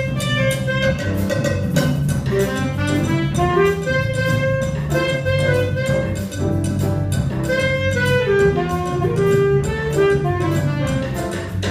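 A student jazz combo playing live: several saxophones on a melody line over low sustained notes, with drums and cymbals keeping time.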